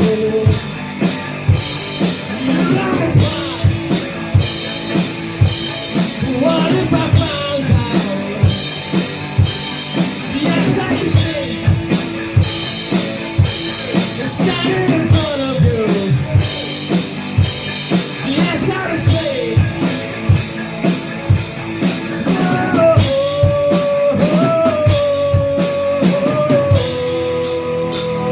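Live rock band playing a wordless instrumental break: a drum kit keeps a steady beat under the full band, while a lead melody bends and slides between notes and then holds one long note near the end.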